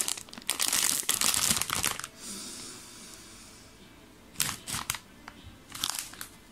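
Foil chip bag being pulled open and crinkled loudly for about two seconds, followed by a few short crinkles as the open bag is handled.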